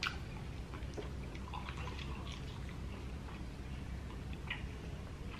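Quiet eating sounds: scattered soft clicks and small wet smacks of chewing, over a low steady room hum.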